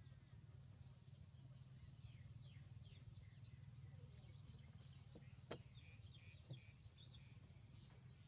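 Quiet outdoor background: faint small birds chirping over a low steady hum, with two soft clicks about five and a half seconds in and a second later.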